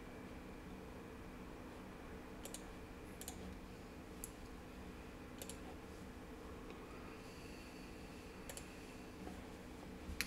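Computer mouse clicking about six times at irregular intervals, over a steady low hum.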